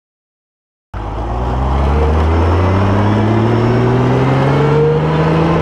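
Honda Gold Wing motorcycle engine accelerating, its pitch rising steadily; the sound cuts in about a second in.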